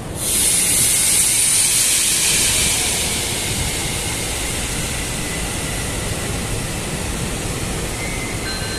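A sudden loud hiss of gas venting from beneath a railway passenger coach, seen as a mist under the carriage. It is strongest for the first two to three seconds, then settles to a steady, slightly quieter hiss over a low rumble.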